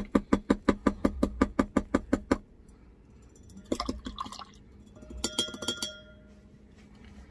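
A brush swished quickly in a stainless steel cup of water, its handle clinking against the metal about six times a second for a couple of seconds while sealer is rinsed off. A few scattered knocks follow midway, the last ones leaving the cup ringing briefly.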